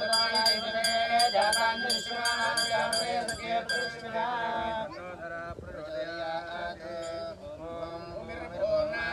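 Vedic priests chanting mantras. For the first few seconds a hand bell rings alongside, struck a few times a second, and it stops about four seconds in.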